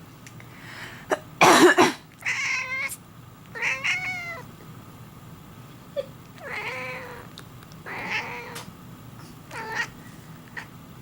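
A person coughs twice in quick succession about a second and a half in. A domestic cat answers with a string of about five meows spread over the following seconds.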